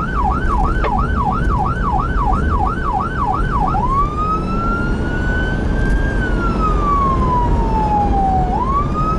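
Emergency vehicle's electronic siren on a fast yelp, switching a little under four seconds in to a slow wail that rises, falls and starts to rise again, over steady engine and road rumble.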